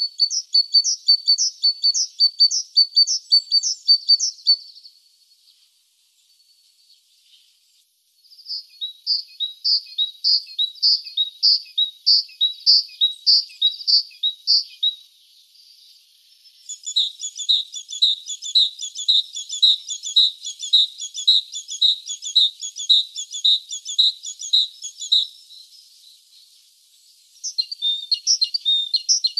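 Great tit singing: four bouts of quickly repeated high, clear notes, separated by pauses of a couple of seconds.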